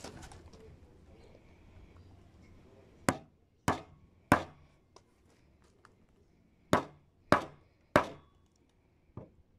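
Hammer striking a wood chisel held against a wooden plank, cutting into the board along a marked line. Two sets of three sharp blows a little over half a second apart, then a lighter tap near the end.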